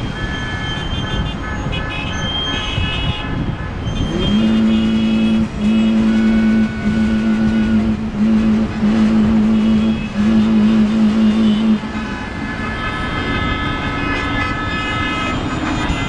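Street traffic with car horns honking in short repeated toots. From about four to twelve seconds a loud low-pitched horn sounds in about five long blasts.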